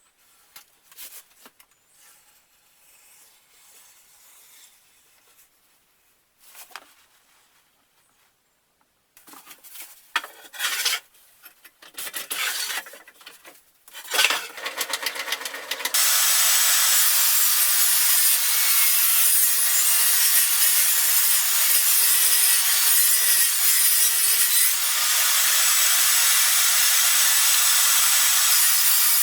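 Tool work on wood: a few faint knocks and scrapes, then louder irregular scraping, and from about halfway a loud, steady, unbroken abrasive noise.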